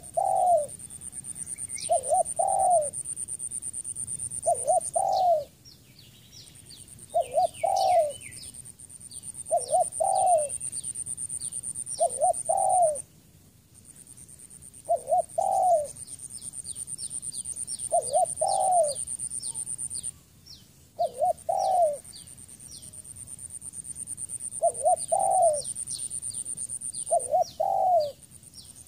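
Spotted dove cooing: a short, low, two- or three-part coo phrase repeated every two to three seconds. Small birds chirp high in the background, and a steady high-pitched whine comes and goes in stretches of several seconds.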